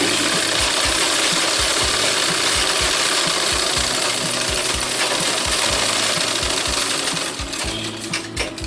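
Sewing machine running steadily as it stitches through fabric, with a low regular knock from the mechanism; it slows and stops about a second before the end, followed by a few light clicks.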